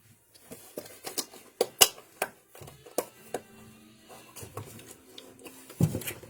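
Kitchen containers and utensils being handled: a series of irregular sharp clicks and knocks, the loudest a little under two seconds in and again near the end.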